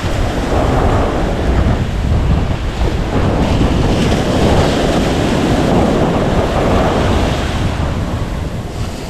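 Ocean surf breaking and washing on the beach, with wind buffeting the microphone in steady low rumbles.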